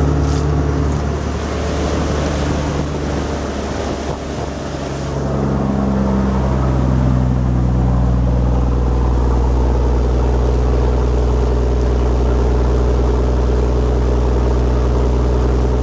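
Volvo Penta D9-575 inline-six marine diesel running steadily with the boat under way at speed. The engine's tone changes about five seconds in and then holds steady and louder.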